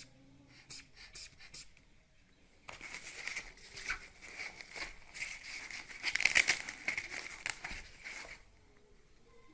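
Air hissing through the valve of a manual blood pressure monitor's rubber inflation bulb, with a thin steady whistle, starting about three seconds in, loudest around six seconds, and stopping near the end. The air is escaping where it should hold, a leak at the pump.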